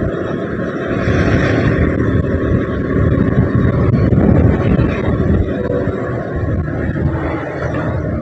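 Motorcycle engine running under way, mixed with heavy wind rush on the microphone; the sound swells from about one second in to about five seconds in, then eases.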